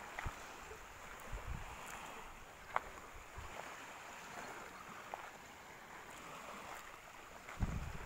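Wind buffeting the phone's microphone in low gusts over a steady outdoor hiss, with one sharp click a few seconds in.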